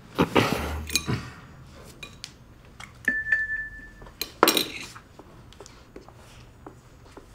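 Tableware clinking and clattering on a table in a few bursts, with a brief high ringing note about three seconds in.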